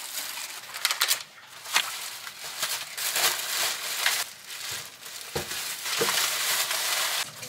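Thin plastic grocery bags and clear produce bags crinkling and rustling in irregular bursts as groceries are lifted out and handled, with a soft knock about five seconds in.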